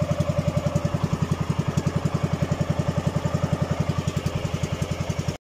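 Outrigger boat's engine running at a steady speed, an even rapid beat of about ten pulses a second. The sound cuts off abruptly just before the end.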